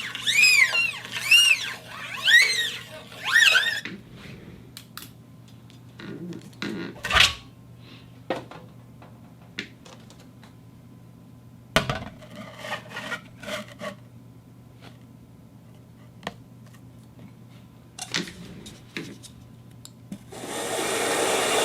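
Turntable handled for sound effects: for the first few seconds a record is pushed back and forth under the stylus, giving about four swooping scratches whose pitch rises and falls. Then come scattered clicks and knocks with short scraping bits, and near the end a loud steady rushing noise starts.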